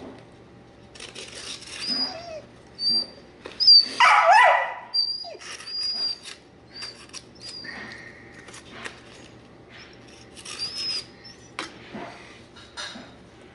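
A crated dog whining and yelping: short, thin, high whines repeat throughout, with one loud yelp that slides in pitch about four seconds in.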